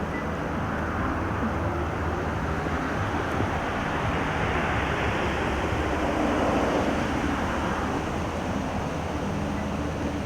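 Road traffic noise: a steady rush with a low hum that swells about four seconds in and fades again near eight seconds.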